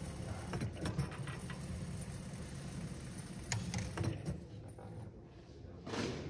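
A low, steady rumble with scattered clicks and light rattles, dying away about halfway through, then a short rush of noise near the end.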